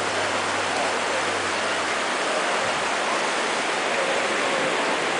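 Steady rushing hiss of ocean surf breaking, with a faint low hum underneath that stops about two seconds in.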